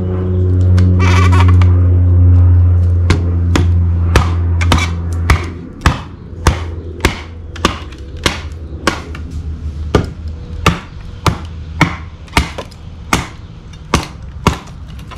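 Dark Timber Knives Devil's Horn, a large camp knife, chopping into seasoned, knotty wood in a steady rhythm of sharp strikes, about three in two seconds. For the first five seconds or so a loud low drone sounds under the first strikes, then stops.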